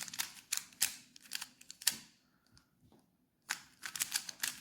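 3x3 Rubik's cube being turned quickly by hand: rapid runs of sharp plastic clicks, stopping for about a second midway before another flurry of turns.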